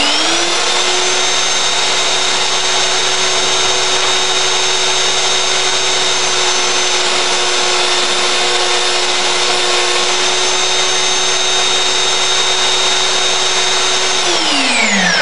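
Craftsman 3x21-inch variable-speed belt sander, held belt-up in a stand, switched on and spinning up with a rising whine. It runs steadily as a board is held on the belt, then is switched off about fourteen seconds in, its whine falling as it coasts down.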